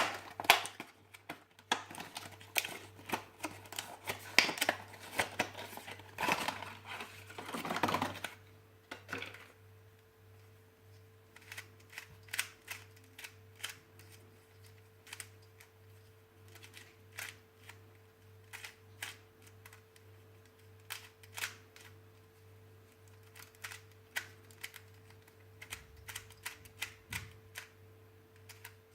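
Unboxing handling noise: a busy run of clicks, taps and rustles for about the first eight seconds, then scattered single clicks, over a faint steady hum.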